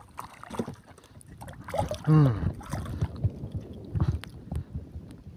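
A small hooked fish splashing at the surface of shallow water as a hand line is hauled in, with water sloshing and scattered small clicks. About two seconds in there is a short, loud vocal exclamation with a falling pitch.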